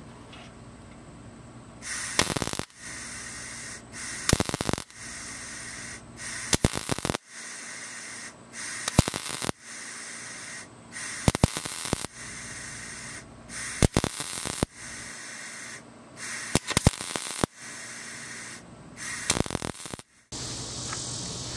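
Wire-feed welder stitch-welding a sheet-metal patch panel into a truck's engine bay: about eight short crackling welds, one every two to two and a half seconds.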